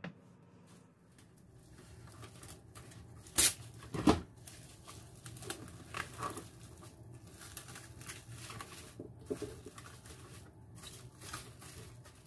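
Clear plastic film crinkling and rustling as it is stretched over a bowl and pressed around the rim, in irregular crackles. Two sharp, loud crackles come about three and a half and four seconds in.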